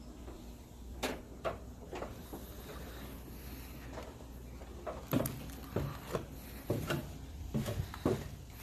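Footsteps of someone walking down stairs, a series of knocks that come about twice a second in the second half.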